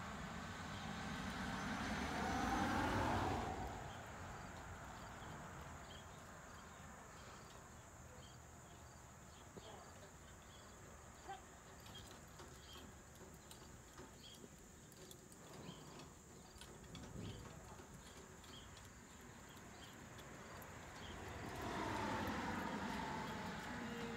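A road vehicle passes in the first few seconds, its pitch sliding down as it goes by, and another passes near the end. In between there is only faint outdoor background with scattered light ticks.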